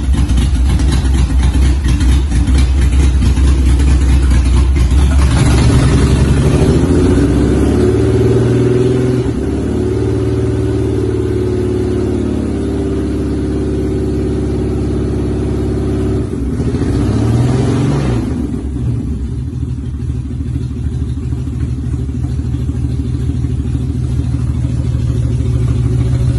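BMW M88 straight-six in an E28 M5 idling just after its first start. Its idle shifts about five seconds in, and the engine revs up and falls back once briefly about 17 seconds in.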